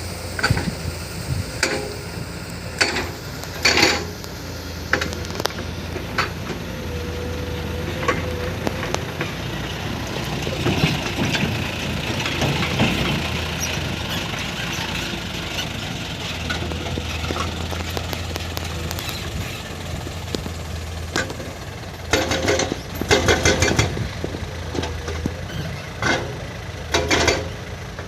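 Hyundai excavator's diesel engine running steadily under load, with scattered knocks and scraping of the bucket in soil and rock. A cluster of clattering knocks comes about three-quarters of the way through, and more near the end.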